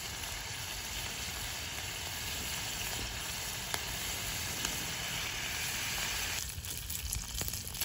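Bacon sizzling in a cast iron skillet: a steady frying hiss with a few sharp pops. About six seconds in, the sizzle turns lighter and more crackly.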